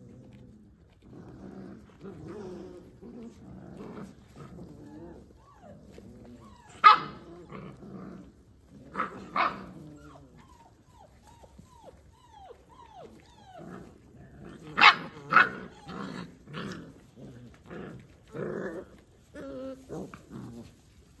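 Kangal puppies play-fighting: low growling throughout, broken by a few loud sharp barks and a run of short high whimpering yips in the middle.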